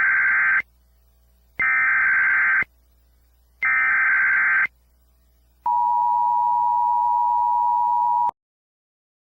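Emergency Alert System tones: three one-second bursts of buzzing SAME header data, then the two-tone EAS attention signal held for about three seconds and cut off abruptly.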